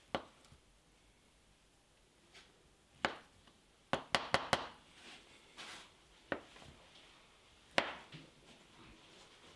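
Chef's knife slicing through soft peeled avocado and knocking on a wooden cutting board: sharp single taps, with a quick run of four about four seconds in.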